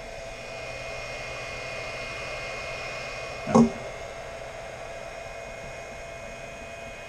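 Built-in cooling fan of a Greenworks 80-volt battery charger running with a steady hum and a faint, even whine while the battery charges. About halfway through, one brief, louder sound cuts across it.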